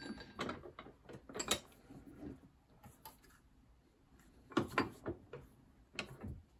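Steel sockets clinking and knocking against a washing-machine motor's rotor shaft and the jaws of a woodworking vise as they are lined up to press a bearing onto the shaft: a scatter of short metallic clicks, the loudest about one and a half seconds in and a quick cluster a little before five seconds.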